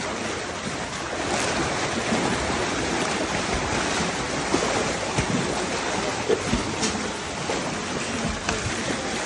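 Water splashing and churning as a crowd of sea lions thrash about in a pool: a steady rushing wash broken by a few sharp splashes.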